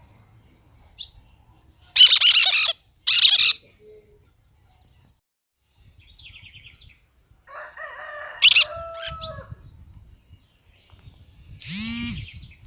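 Cactus parakeets calling: two loud, harsh screeches about two and three seconds in, followed by quieter chattering and short chirping calls, and a sweeping call near the end.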